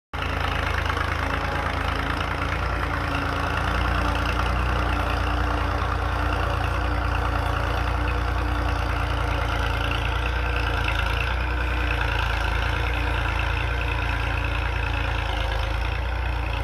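Diesel engine of a New Holland tractor running steadily while it pulls a tine cultivator through ploughed soil.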